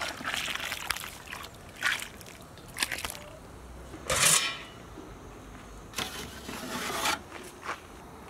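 A string of short cooking-handling noises: tamarind juice pouring from a steel bowl into a large pot of sambar, a louder knock about four seconds in as the metal steamer box is opened, then rustling and scraping as steamed idlis are peeled off their cloth onto a steel tray.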